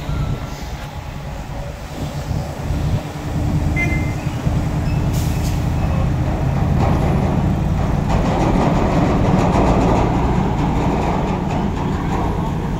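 Heavy diesel engine running steadily, louder from about three seconds in, with light clicks and rattles through the second half.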